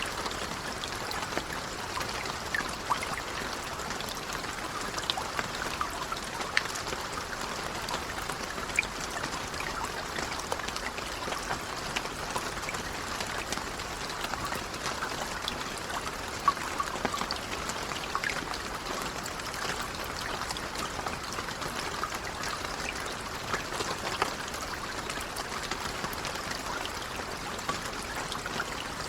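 Steady, gentle rain falling, an even hiss with scattered individual drops ticking sharply on a surface.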